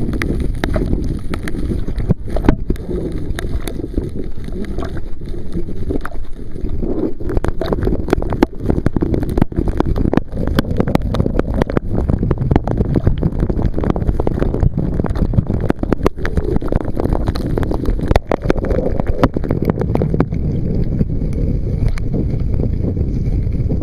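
Wind rumbling on the microphone in a steady low roar, with a dense scatter of sharp taps from rain striking the microphone.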